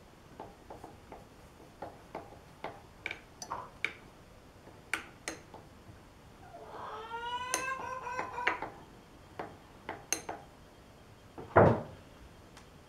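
Steel parts and a C-clamp being handled and fitted against a chuck: a run of small metallic clicks and taps, a drawn-out squeal lasting about two seconds in the middle, and one loud knock about a second before the end.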